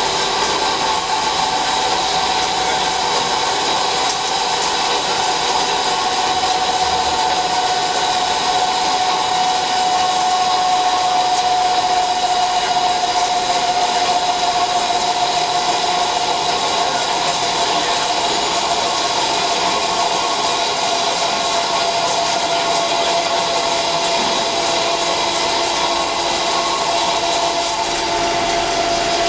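CNC flat-bed lathe running steadily while machining a part. A continuous whine sits over the machining noise and drifts slowly lower in pitch.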